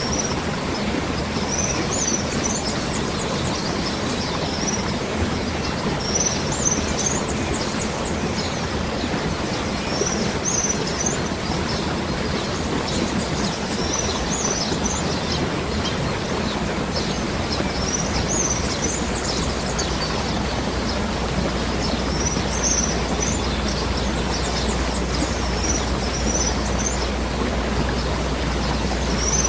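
Waterfall with water falling and running in a steady, even rush. A bird repeats a short high chirping phrase about every two seconds.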